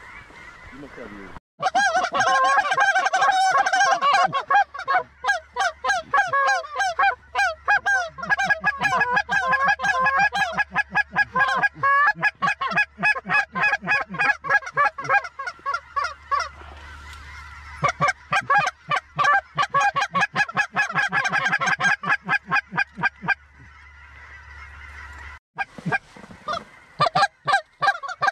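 A flock of cackling geese calling: many rapid, high yelping calls overlapping one another, starting abruptly about a second and a half in and cutting off near the end.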